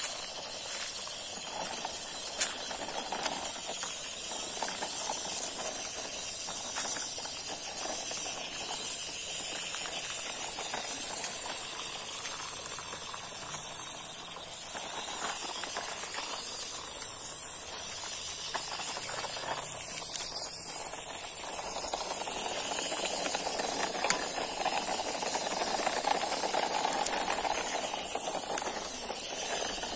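Toy RC truck's small electric motor and gears running as it crawls over rough, gritty dirt, with scattered small crunches from the tyres, over a steady high hiss. The running sound grows a little louder near the end.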